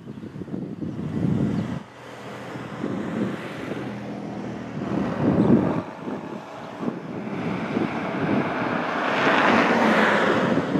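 Wind buffeting the microphone in gusts, over the distant working of a steam locomotive, Arcade & Attica No. 18, a 2-8-0, unseen behind the trees. A rushing hiss swells near the end.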